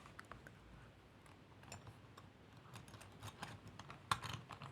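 Jewelry being tapped and handled: a run of small, light clicks, with a louder cluster about four seconds in.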